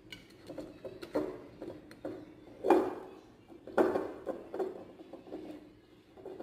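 Olive oil bottle and bowl handled while oil is poured: a string of irregular soft knocks and clicks, the loudest a little under 3 s and near 4 s in.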